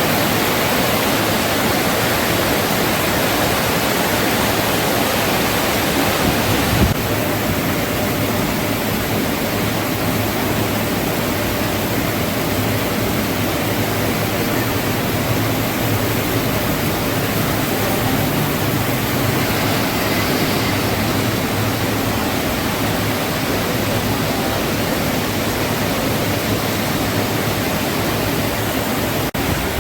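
Heavy rain falling steadily, a dense, even hiss, with a single knock about seven seconds in.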